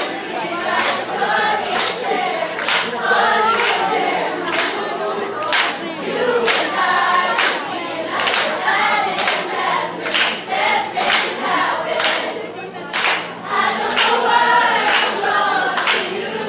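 A large group of voices singing and chanting together in unison as a choral performance, punctuated by sharp claps roughly once or twice a second.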